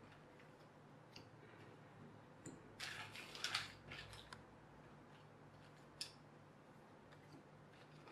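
Thin cardboard jigsaw puzzle pieces being sorted and turned over by hand on a cloth: faint soft clicks and rustles, with a short clatter about three seconds in and a sharper click about six seconds in.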